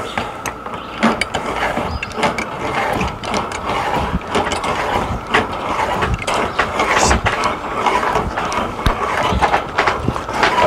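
Ratchet clicking from a manual RV awning's roller end head as its spring is wound up by turning the head with pliers: a quick, uneven run of clicks.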